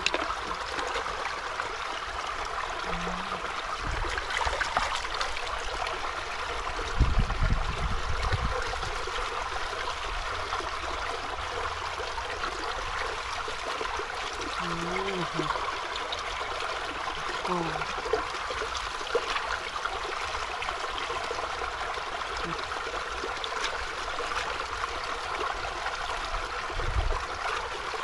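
Shallow water trickling steadily through a muddy ditch. There are a few short murmured vocal sounds and some low bumps, loudest about seven seconds in.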